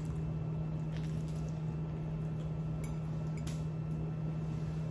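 Steady low hum with a few faint clinks of a plate and cutlery as avocado toast is eaten.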